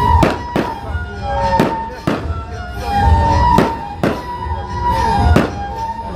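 Fireworks display: aerial shells bursting with sharp bangs, roughly one a second, over music with held notes.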